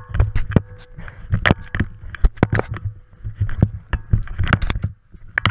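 Irregular knocks, clicks and scrapes of a camera being handled and bumped, over a low steady rumble.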